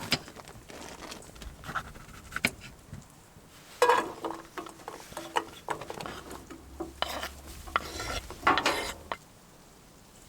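Cookware and utensils being handled for cooking: irregular clinks, knocks and clatter of pots, pans and cutlery, with louder clattering about four seconds in and again a little before the end.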